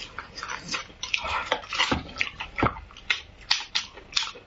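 Metal spoon scraping and scooping marrow out of a sauced beef marrow bone: an irregular run of wet squelches and small clicks, with a couple of heavier knocks about two seconds in.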